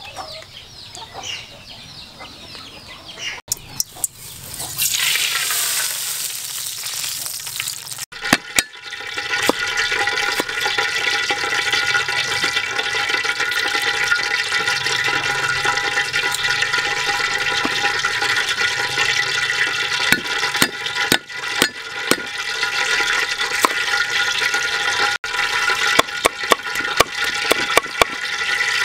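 Cleaver chopping on a wooden cutting board, a run of quick sharp chops through the last several seconds, over a steady high droning background. A few seconds of rushing, water-like noise that fades near the start.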